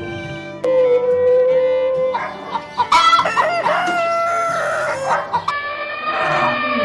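Rooster crowing, over background music.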